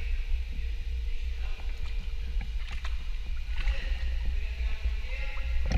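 Pool water moving around a camera held in the water: a steady, muffled low rumble with a few faint splashes and ticks.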